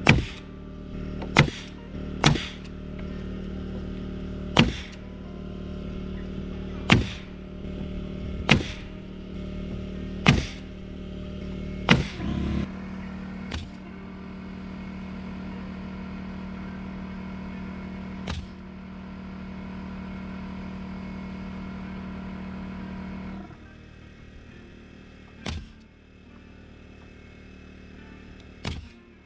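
Pneumatic nailer firing nails through OSB subfloor sheathing into the joists: about a dozen sharp shots, a second or two apart at first and farther apart later. Under them an air compressor runs with a steady hum, then cuts off about 23 seconds in.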